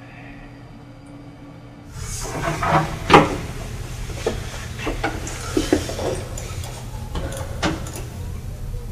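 Quiet room tone, then from about two seconds in a steady low hum with scattered knocks and bumps of someone moving about a room, the loudest about three seconds in.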